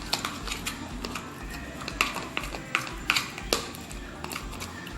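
Glue slime being stirred in a pot as it thickens: irregular sticky clicks and smacks, with a few louder snaps about two to three and a half seconds in.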